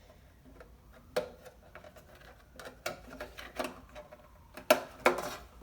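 Scattered small clicks and knocks of hands working the battery-compartment cover on a steel electronic-keypad safe, trying to slide it open, with the loudest knocks near the end.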